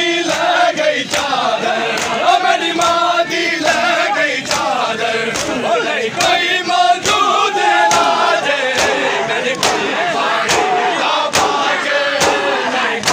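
A crowd of men chanting a noha, the Shia mourning lament, in unison. It is cut by a steady beat of sharp slaps from open hands striking bare chests in matam.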